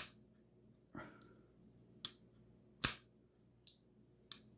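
Liner-lock folding knife being opened and closed by hand to test its actuation: about six sharp clicks of the blade snapping open into lock and shut, the loudest near three seconds in.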